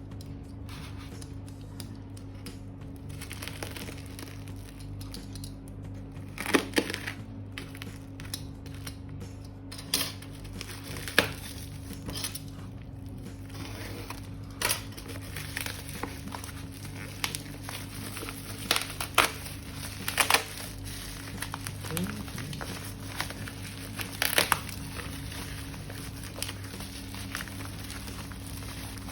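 Packaging being unwrapped by hand: crinkling and crumpling of wrapping, with scattered sharp crackles and tearing sounds, over a steady low hum.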